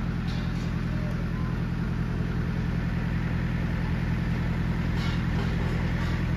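Engine of a Schwing concrete pump running steadily at constant speed: a low, even drone.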